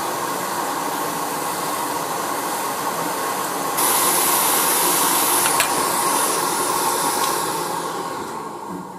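Pen-style hot air rework tool blowing a steady hiss of hot air onto an SMD chip to melt its solder. About four seconds in it turns louder and hissier, then it fades off near the end.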